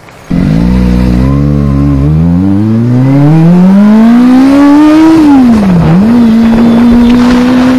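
Kawasaki Ninja ZX-25R's 250 cc inline-four engine accelerating hard from a standstill. The pitch climbs in steps through a couple of quick gear changes, rises in one long pull to about five seconds in, drops, then holds steady at cruising speed.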